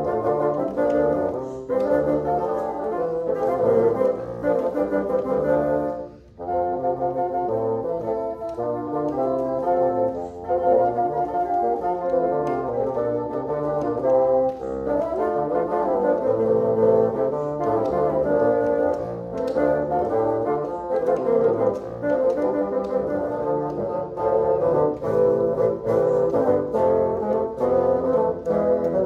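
Bassoon quartet playing a slow ensemble piece, four bassoons sounding together in moving harmony, with a brief pause about six seconds in.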